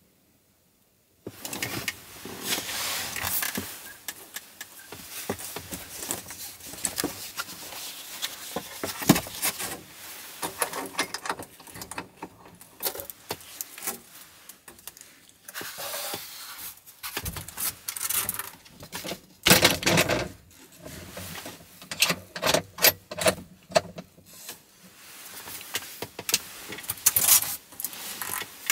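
Someone moving about and handling things in a cramped room: rustling with many irregular light knocks and clatters, starting about a second in, as a rigid board covering a window is taken down and handled.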